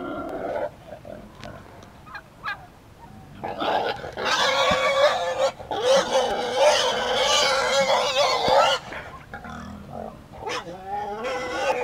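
Pot-bellied pig squealing loudly for about five seconds, starting a few seconds in, with shorter squeals near the end: distress squeals while the donkey tussles with it.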